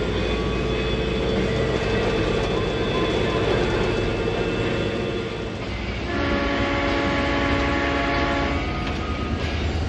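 Diesel locomotive RL302 running under way, a steady low engine drone heard from inside the cab. About six seconds in, the locomotive's horn sounds one chord of several notes for about two and a half seconds.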